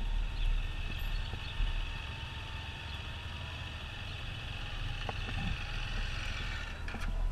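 Touring motorcycle engine running low and steady as the bike rolls slowly, with a higher hiss that stops suddenly near the end.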